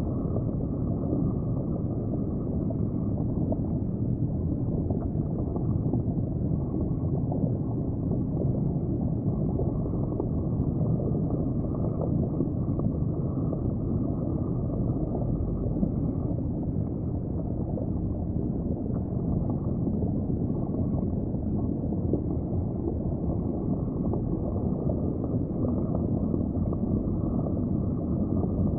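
Steady, muffled low rumble of water heard through a camera submerged in an aquarium tank, with no distinct events.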